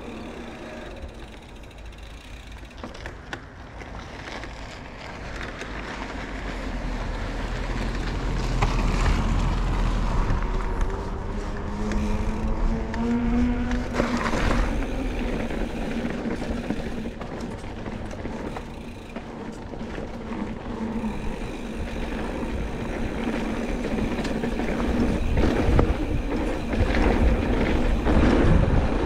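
Mountain bike riding: wind rushing over the camera microphone and tyres rolling, first on pavement, where a hum climbs in pitch about halfway through. Near the end come bumps and rattles on a dirt trail.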